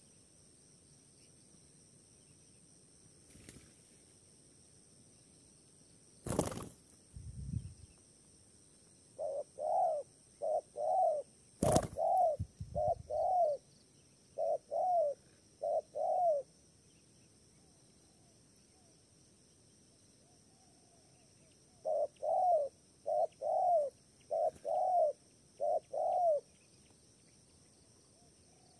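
Spotted dove cooing: two bouts of repeated coos, the first starting about nine seconds in, the second near the end. Two sharp knocks, each followed by a short low rumble, come before and during the first bout, over a faint steady high insect drone.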